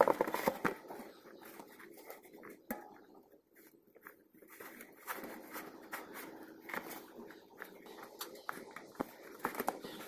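Irregular scraping and rubbing with light clicks from hand work on bicycle wheel parts. It is busiest in the first second, thins out in the middle, and picks up again about halfway through.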